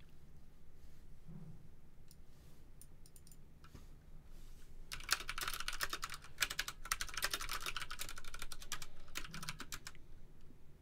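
A run of rapid, sharp clicks like keyboard typing. It comes in sparse taps at first, then turns into a dense flurry from about five seconds in until shortly before the end.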